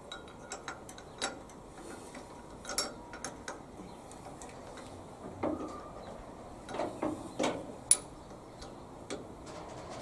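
Irregular metal clicks and knocks from the controls of a stopped Aveling Barford DY road roller engine being worked by hand while it is made ready for an air start. The sharpest click comes about eight seconds in.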